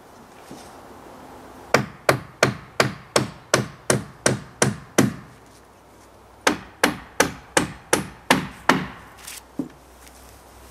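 Hammer striking wood in two quick runs of evenly spaced blows, about three a second, the first of about ten and the second of about seven, with a pause between and a couple of lighter taps near the end.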